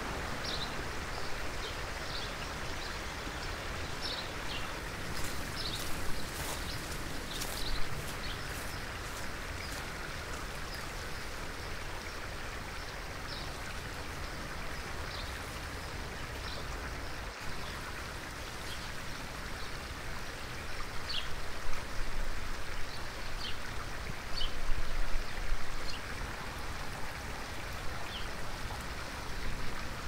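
A small stream running over rocks gives a steady rush of water, louder for a few seconds past the middle. Short bird chirps are scattered throughout, and there are a few sharp clicks in the first third.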